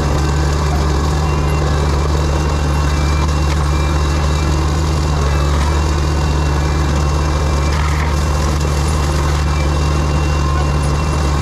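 Diesel engine of heavy land-clearing equipment, an excavator or a forestry mulcher, running loud and steady at constant speed, with a faint on-and-off high whine over it.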